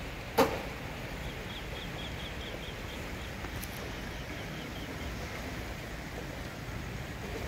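A steady outdoor hiss of rushing noise over rippling floodwater, with one sharp knock about half a second in. A bird sings a quick run of short high chirps, about four a second, twice.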